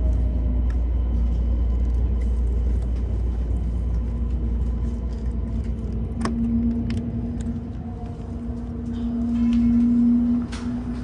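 Keisei Skyliner express train heard from inside a carriage as it slows along the station platform, with a low rumble from the running gear. A slowly falling motor whine is heard early on. A steady hum comes in about four seconds in, grows louder, and stops shortly before the end, with a few clicks.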